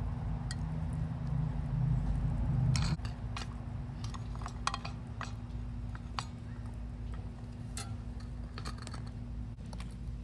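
Scattered light clicks and taps of utensils and a pie iron being handled while a sandwich is assembled, over a low steady rumble that stops about three seconds in.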